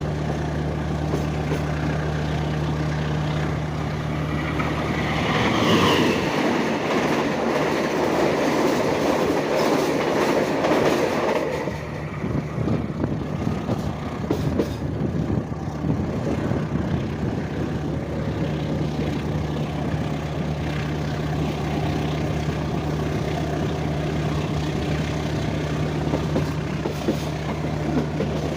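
Diesel engine of a CC 203 diesel-electric locomotive running with a steady low drone. For several seconds, from about a fifth of the way in, a louder rushing, rattling noise rises over it and then drops away.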